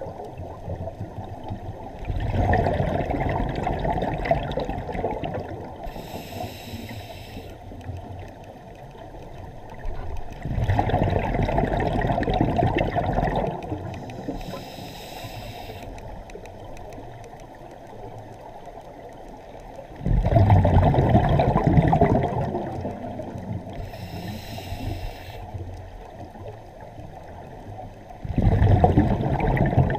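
Scuba diver breathing through a regulator underwater: four bubbling exhales, one about every eight to nine seconds and each lasting two to three seconds, with a short hiss of the regulator on each inhale between them.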